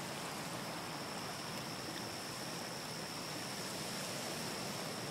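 Steady, even rushing noise with a faint, high, steady whine running through it.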